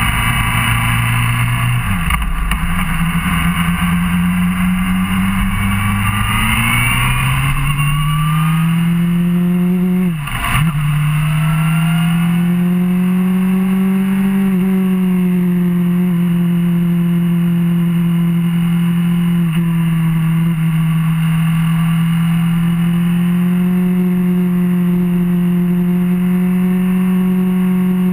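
Suzuki GSR600's inline-four engine under way: the note dips briefly about two seconds in, climbs steadily for several seconds as the bike accelerates, drops sharply with an upshift about ten seconds in, then holds a steady note at cruising speed.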